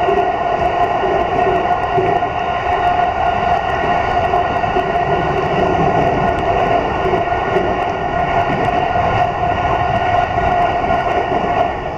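Keiyo Line commuter train running along the line, heard from inside the passenger car: a steady rolling rumble of wheels on rail with an even hum, unchanging throughout.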